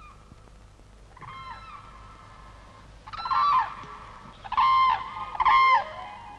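Wild geese honking: a series of about five calls, the three in the second half loudest.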